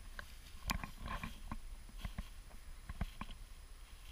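Scattered crunching clicks and rustles of movement through snow-covered dry weeds, irregular and sparse, with the loudest crack a little under a second in.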